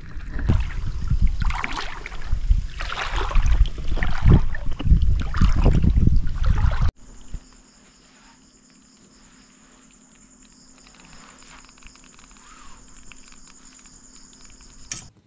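Loud, uneven rustling and scuffing noise for about seven seconds that stops abruptly, then faint night ambience with a steady high insect trill and a faint low hum.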